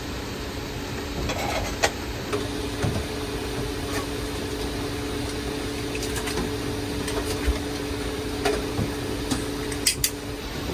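Heavy rain falling on a campervan's roof, heard from inside the van as a steady hiss with scattered sharp taps, over a steady low hum.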